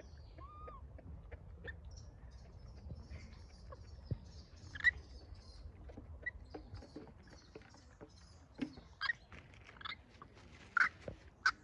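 Faint crackling and rustling of dry pine needles and a plastic wrapper as a baby macaque paws through them. Several short, high squeaks stand out from about the middle on.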